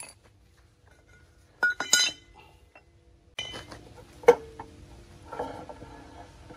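Steel parts of a hand-operated mortising machine clinking and knocking together as a metal plate is fitted onto its column by hand: a few quick clinks about two seconds in, one sharp ringing clank a little after four seconds, then a short rattle.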